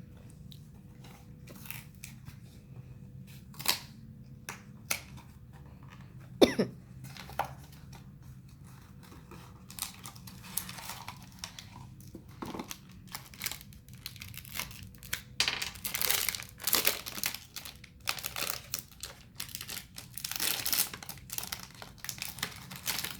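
Blind-box packaging being opened by hand: scattered clicks and taps of the cardboard box at first, then, from about ten seconds in, crinkling and tearing of the wrapper inside.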